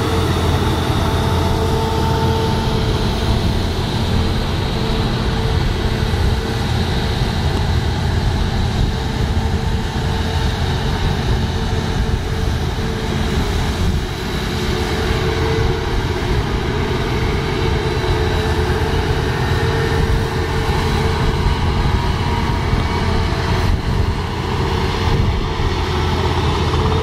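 Claas Lexion TerraTrac combine harvesters working through standing wheat: a loud, steady drone of the engine and threshing gear, with a few thin steady tones above it.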